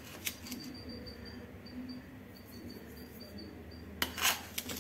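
Quiet kitchen room tone with a faint, broken high whine, a small click just after the start, and a brief soft rustle about four seconds in as a spoonful of sugar is tipped into a saucepan of milk.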